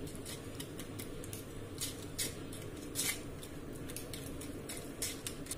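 A metal spoon scraping and pressing wet garlic-chilli paste in a small steel strainer: irregular light clinks and scrapes of metal on metal, with a soft wet squish.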